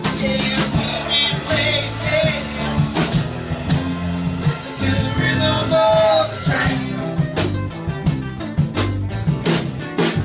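Live Americana band playing: strummed acoustic guitars, electric bass and a drum kit, with singing over it. The singing stops about seven seconds in, leaving the guitars and drums.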